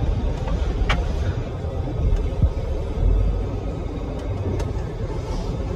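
Cabin noise of a 2023 Ford Edge L driving over a dirt track: a steady low rumble from the tyres and suspension, with a few light knocks and clicks, the sharpest about a second in.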